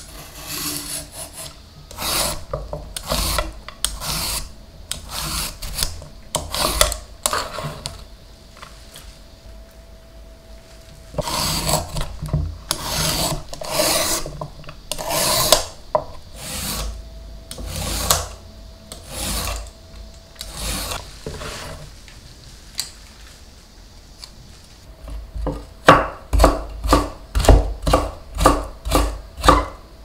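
Julienne peeler shaving a burdock root on a wooden cutting board: a run of separate rasping strokes along the root. Near the end comes a quicker series of knife cuts knocking on the board, about three a second, the loudest sounds.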